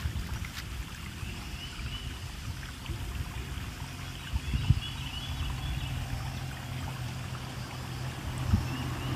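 Outdoor ambience: a low steady rumble, with faint high chirps now and then and a couple of soft knocks, one about halfway through and one near the end.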